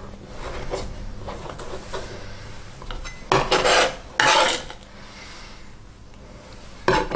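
A kitchen knife scraped twice across a plastic cutting board, pushing onion scraps, after a few seconds of soft handling sounds. Another short scrape or clatter comes near the end.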